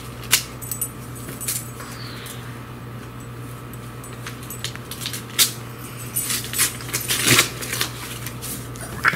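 Rustling and small clicks of paper and a small gift being handled and unwrapped, with a longer rustle about seven seconds in, over a steady low hum.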